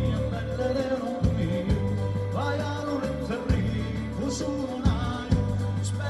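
Live Calabrian folk band playing a tarantella with a singer, over a steady bass line and a regular drum beat.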